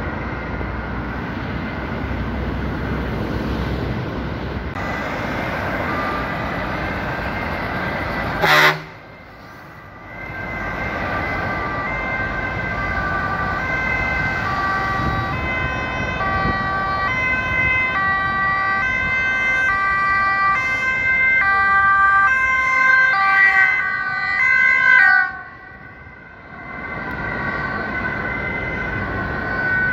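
Motorway traffic running past below, with a sharp click about a third of the way in. Then an emergency vehicle's two-tone siren alternates between two pitches over the traffic for about ten seconds and breaks off near the end.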